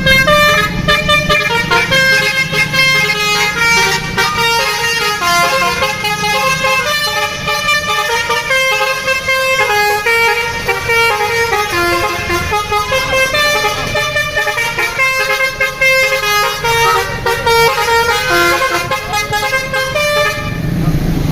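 A bus's multi-tone telolet horn playing a long melody of quick stepped notes, several tones sounding together, over a low rumble.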